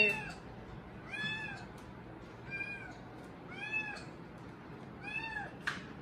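A cockatiel calling over and over: short rising-and-falling calls, about one every second and a quarter, with a brief sharp click near the end.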